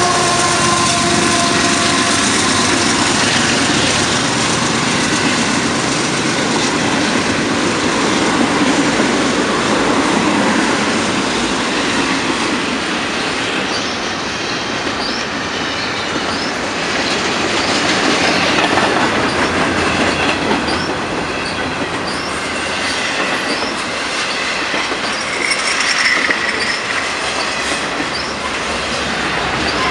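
Canadian Pacific intermodal freight train passing at speed, with double-stacked container cars giving a steady rumble and wheel-on-rail clatter. A diesel locomotive's drone fades in the first couple of seconds as the last unit goes by. Short high wheel squeals recur through the second half.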